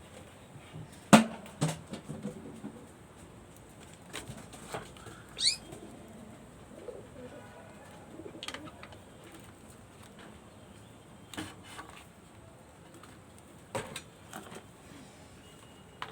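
Pigeons cooing softly, with scattered sharp taps and knocks from the birds moving about, the loudest a pair about a second in. A short rising chirp about five seconds in.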